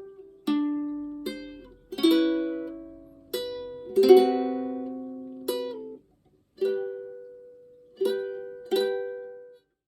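Solo ukulele playing a slow melody of single plucked notes and chords, each note ringing and fading before the next. The sound cuts off sharply about six seconds in, and the playing resumes half a second later.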